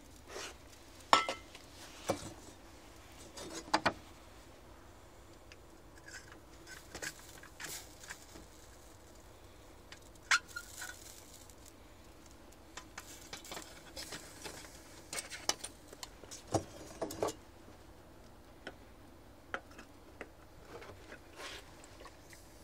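Scattered metallic clinks, taps and knocks from a small tin-can wood-burning stove being handled, a few with a brief ring, with quiet stretches between.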